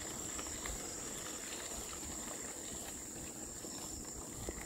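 Bicycle rolling along a gravel trail, its tyres making a low rough rumble with small clicks of stones, under a steady high-pitched insect trill.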